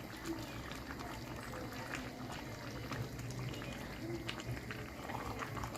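Spaghetti cooking with chicken and vegetables in a pan, sizzling and bubbling steadily with scattered small pops.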